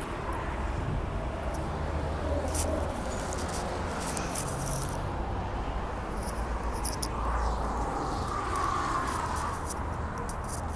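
Outdoor background noise: a steady low rumble with scattered light clicks.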